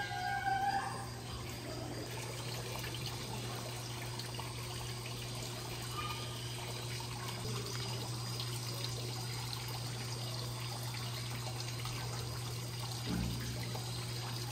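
Water trickling steadily over a low, steady hum, with a brief whistling call in the first second.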